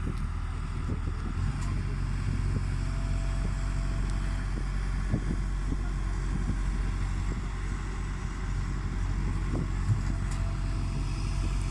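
Hitachi backhoe's diesel engine running steadily. Its note steps up about a second and a half in, and a few faint knocks come through over it.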